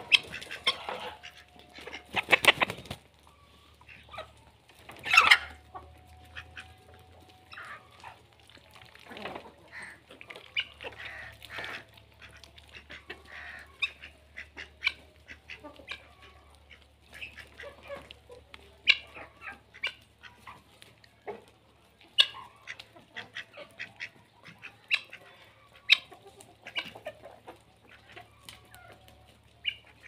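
Free-range hens clucking and calling while feeding on chopped greens, with many short calls scattered through and two louder outbursts in the first few seconds.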